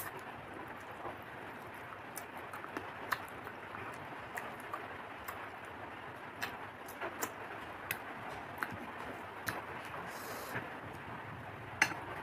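Eating sounds from a meal of fried foods: scattered small clicks and crunches of chewing and of fingers on a plate over a steady background hiss, with one sharper click near the end.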